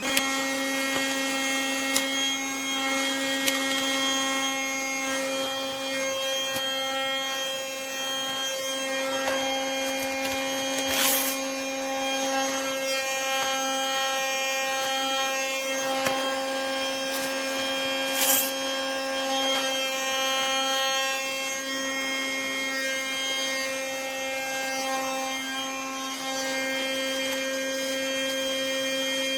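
The small battery motor of a Casdon Dyson toy cordless vacuum running with a steady hum, with two brief sharp knocks about 11 and 18 seconds in.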